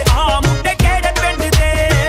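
Punjabi pop song in an instrumental passage: a heavy, steady drum beat with deep bass under a wavering melody line.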